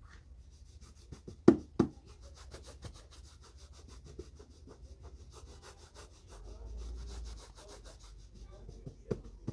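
Shoe being buffed at a shoe shine, with quick rhythmic rubbing strokes, several a second. Two sharp knocks about a second and a half in and another near the end.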